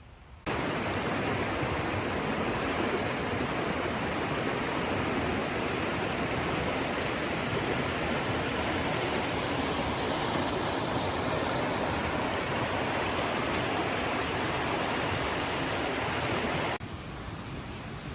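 Waterfall: the steady rush of falling water. It cuts in sharply about half a second in and drops away sharply shortly before the end.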